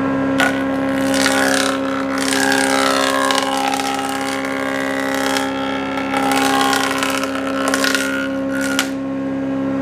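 Electric wood jointer running, its spinning cutterhead planing a board fed across it, a rough cutting noise over the steady motor hum. The cutting eases briefly about halfway and starts again, as the wood goes over the cutter a second time.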